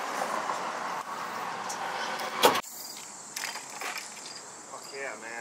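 Steady noise of road traffic that ends with a sharp click about two and a half seconds in, followed by quieter outdoor ambience with a thin, steady high insect drone.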